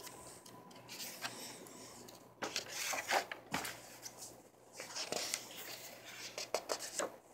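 Pages of a Leuchtturm 1917 sketchbook being turned and handled: paper rustling in several short bursts, the loudest about three seconds in.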